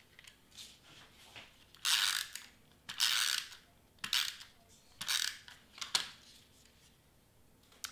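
Tombow permanent adhesive tape runner drawn across cardstock in about five short strokes. Its small gear mechanism whirs as it lays down the adhesive, loudest on the strokes about two and three seconds in.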